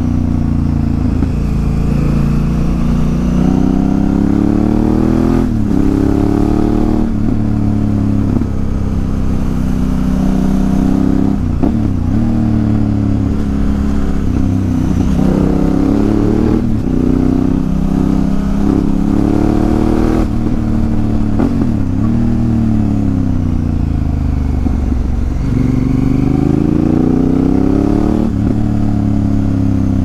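Honda Africa Twin CRF1000L's parallel-twin engine through an aftermarket Remus exhaust, ridden on the road: the pitch climbs under throttle and drops sharply at each gear change several times, with easing off and gliding down in between.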